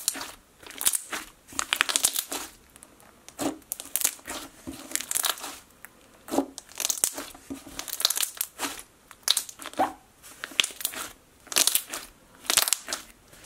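Fingers poking, squeezing and stretching a thick, glossy slime, giving repeated short bursts of wet squelching and crackling bubble pops about once or twice a second.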